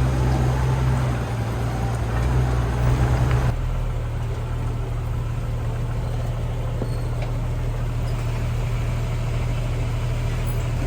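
Stock Jeep's engine running at low trail speed. For about the first three and a half seconds the noise is rougher and busier, then it changes abruptly to a steadier low hum.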